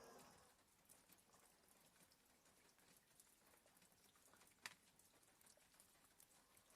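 Near silence between a sleeping border collie's soft snores: the tail of one snore fades out in the first half second. Then come faint scattered taps of light rain, and one sharp click about four and a half seconds in.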